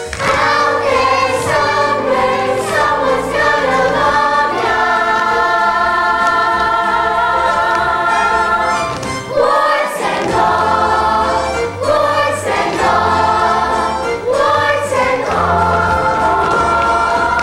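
A young cast singing a musical theatre number together in chorus over instrumental accompaniment, with a long held chord in the middle and a brief drop about ten seconds in.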